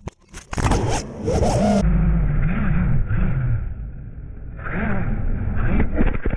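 FPV racing quadcopter in flight: the motors whir and wind rushes over the onboard camera, the motor pitch rising and falling as the throttle changes. A few sharp clicks at the very start.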